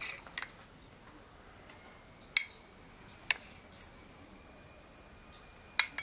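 A kitchen knife clicks sharply against a plate a few times as it cuts through hard-boiled eggs. Short high bird chirps come in between the clicks.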